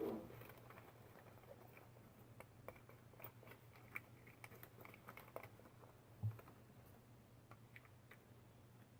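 Faint scattered clicks and scrapes of a small spoon scooping used coffee grounds out of coffee-machine containers, with a soft thump a little past six seconds.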